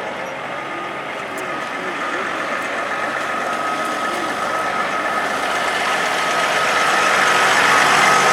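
Road traffic: a vehicle engine running, growing louder toward the end as it draws near.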